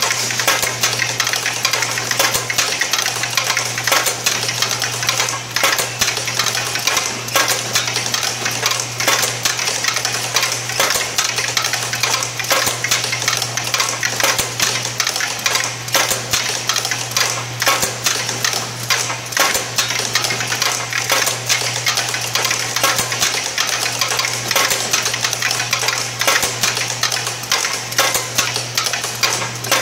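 Automated packaging machine running: a fast, steady mechanical clatter of rapid clicks over a steady low hum.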